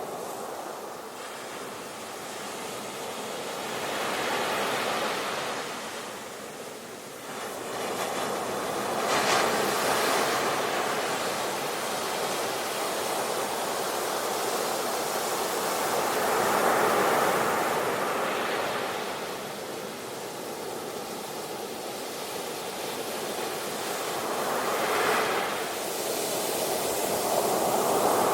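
Sea waves breaking and washing on the shore, a continuous hiss of surf that swells and ebbs every few seconds, with the biggest breakers about a third of the way in, past the middle and near the end.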